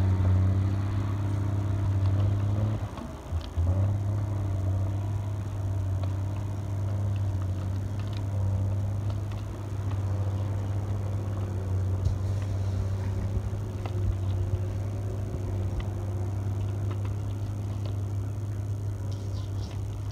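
Cable-logging hauler's diesel engine running steadily with a low, even drone while the grapple is worked. The drone dips briefly about three seconds in, then carries on unchanged.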